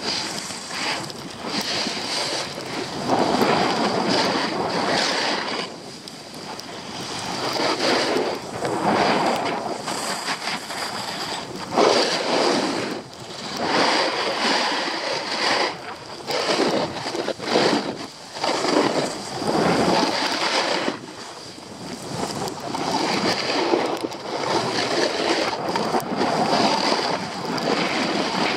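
Wind rushing over an action camera's microphone during a fast ski descent, mixed with the hiss and scrape of skis on snow, swelling and easing every few seconds.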